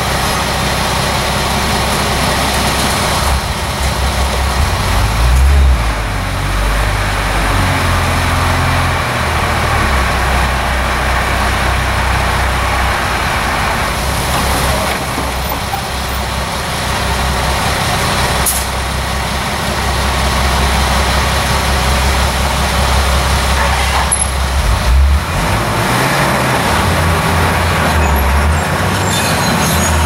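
Diesel dump truck engine running as the loaded truck backs up and tips its bed of soil, rising in pitch for a few seconds near the start. A brief hiss is heard past the middle.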